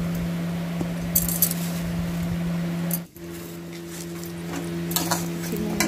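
Light clinks and scrapes of a steel spoon and spatula against steel cookware, over a steady low hum.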